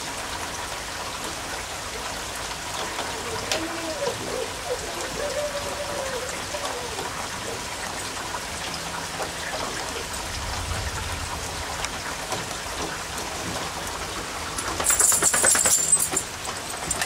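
Steady rain falling on a wet path and lawn, with a small child's faint voice a few seconds in. About fifteen seconds in, a brief louder crackling noise with rapid clicks rises over the rain.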